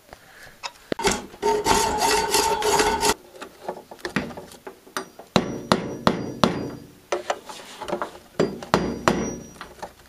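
Hammer blows on a nail being driven into the wooden cannon base: a run of sharp strikes at an uneven pace. About a second in there are also about two seconds of a steady rasping whir with a hum.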